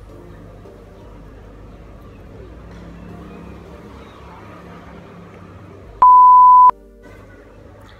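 A single loud, steady edited-in beep tone lasting under a second, about six seconds in, over a faint low background rumble.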